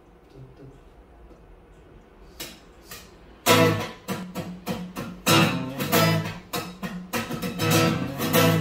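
Acoustic guitar: after a quiet start and two single strums, strummed chords begin about three and a half seconds in and carry on in a steady rhythm.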